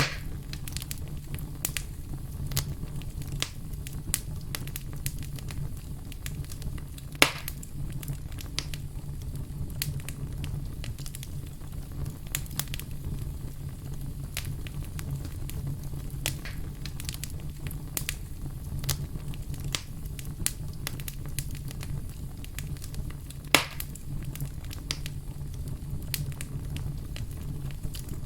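Fireplace fire crackling: frequent small pops and snaps over a steady low rumble, with two louder pops, one about a quarter of the way in and one late on.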